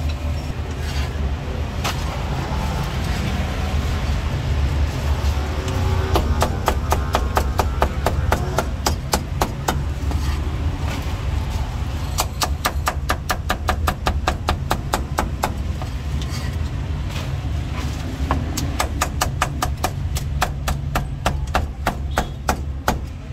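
Cleaver chopping crispy roast pork belly on a thick round wooden chopping block, in rapid runs of sharp chops several a second, starting about six seconds in. A steady low rumble runs underneath.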